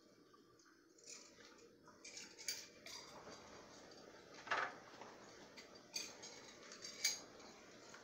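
Metal clinks and clacks of a hand-held citrus press and jigger as lime halves are squeezed: about five sharp clinks, the loudest about halfway through and another near the end.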